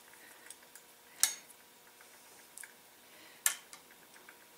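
Two sharp metallic clicks about two seconds apart, with a few fainter ticks, as a hand tool works a lubricated ARP connecting-rod bolt in and out on a Volkswagen connecting rod, spreading lube on the threads without tightening.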